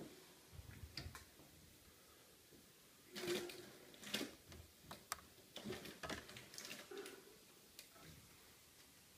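Faint, irregular light clicks and soft knocks, loudest about three and four seconds in, over a low hiss.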